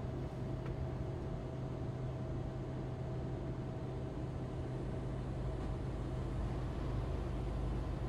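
Steady low drone of a Freightliner Cascadia semi truck cruising, heard inside the cab: engine and road noise.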